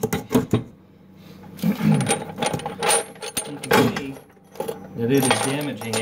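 Hardened steel chain links and a steel chain-lock adaptor clinking and clanking against each other and against the jaws of large bolt cutters as they are handled, in a run of sharp metallic clicks. A man's low voice sounds come briefly twice.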